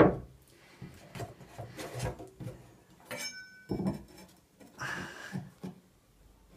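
A stainless steel bracket being handled and laid on a piece of timber: scattered light knocks and taps of metal and wood, a short metallic clink that rings briefly about three seconds in, and a scraping slide of the plate across the wood near the end.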